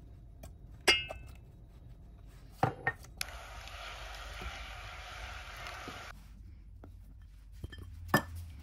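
A ringing clink as a bowl knocks the saucepan while butter is tipped into the water, then two duller knocks. Water and butter boil and sizzle in the pan for about three seconds, cutting off suddenly, and another knock of utensil on pan comes near the end.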